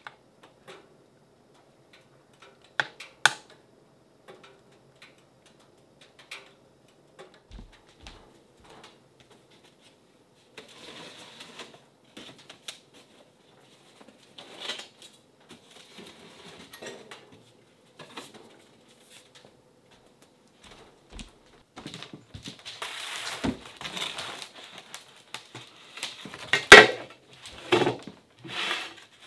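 Household handling sounds: scattered clicks and knocks, two sharp ones about three seconds in, and patches of rustling. In the last several seconds comes a busier clatter of metal trays and a woven basket lid being handled, the loudest hits near the end.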